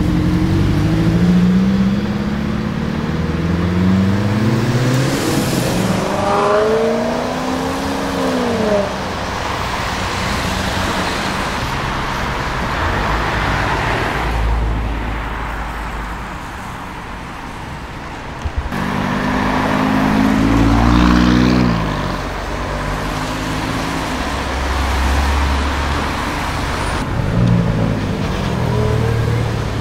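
Sports car engines accelerating away one after another, each exhaust note rising in pitch. The first car pulls away at the start and fades about a third of the way in. After a stretch of road noise, another car accelerates about two-thirds of the way through and a third near the end.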